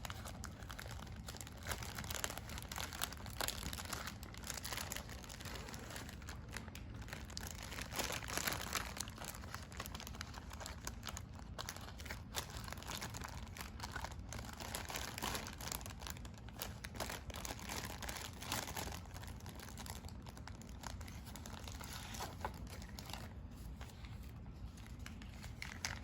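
Wrapping crinkling and tearing, handled by hand without a break, with many small sharp crackles: a treat being unwrapped.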